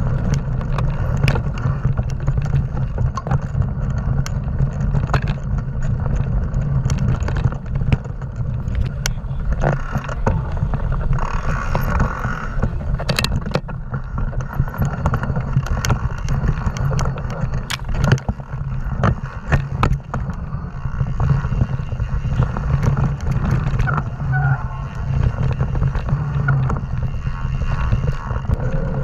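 Wind rushing over the microphone of a mountain bike riding fast along dirt and sand trail, with frequent short rattles and knocks from the bike over bumps.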